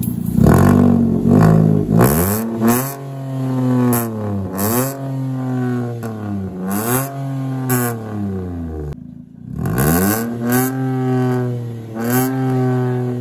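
Suzuki Wagon R's 1.0-litre three-cylinder engine breathing through a freshly fitted straight-pipe exhaust, revved repeatedly, its pitch rising and falling several times.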